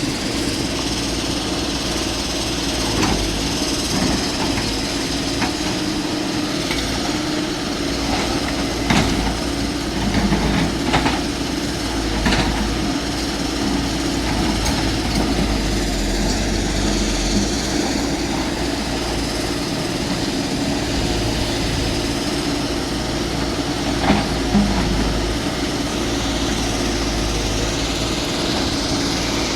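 Excavator running steadily under work, with a few sharp metallic knocks and clanks, the loudest about nine seconds in and again about twenty-four seconds in.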